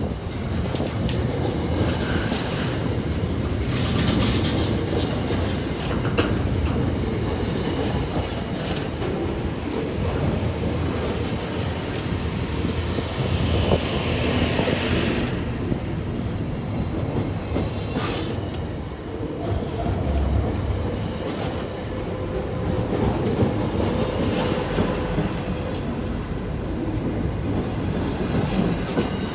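Container wagons of a freight train rolling past close by: a steady rumble of wheels on rail with scattered clacks and knocks. A higher-pitched wheel squeal rises for a few seconds about halfway through.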